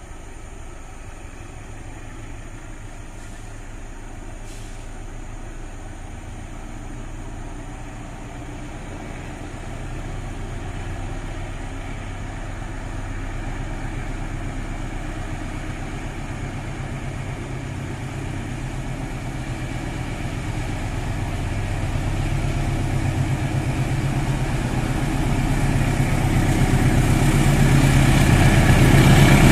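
Diesel locomotive hauling a passenger train approaching, its low engine rumble growing steadily louder as it nears.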